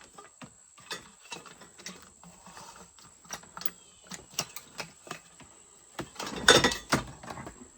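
Household items being rummaged through and handled: scattered small clicks and knocks, with a louder clatter about six and a half seconds in.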